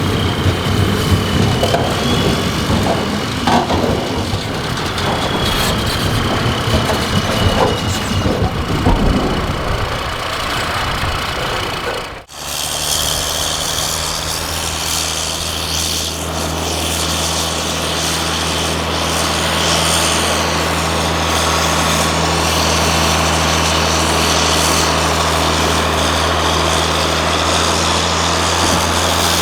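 EMD GP40 diesel locomotive (turbocharged 16-cylinder) running: a rough rumble with faint high squeals at first, then, after a sudden cut about twelve seconds in, a steady low engine hum.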